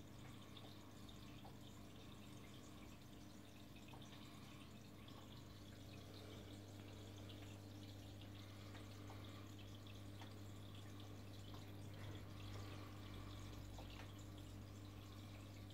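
Faint aquarium water trickling and dripping, with a steady low hum underneath.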